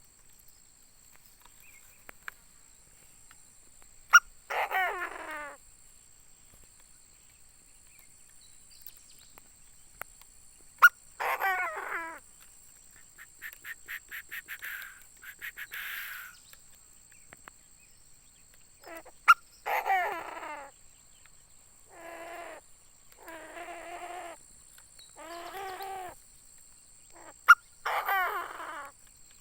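Decoy Chinese francolin (đa đa) calling: harsh phrases of about a second each, repeated about eight times, with a run of quick notes around the middle. A sharp click comes just before four of the loudest calls.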